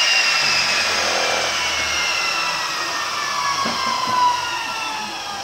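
Handheld circular saw running down after being switched off, its whine falling slowly and steadily in pitch. There is a light knock about four seconds in.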